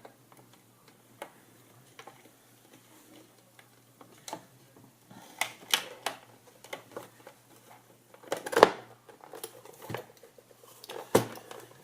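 Scattered clicks and knocks of hands handling and fitting the parts of a flip clock radio's housing, with a louder knock about eight and a half seconds in and another near the end.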